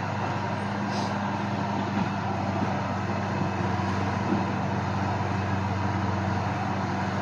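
Caterpillar 12G motor grader's diesel engine running at a steady, even pitch as the machine creeps forward.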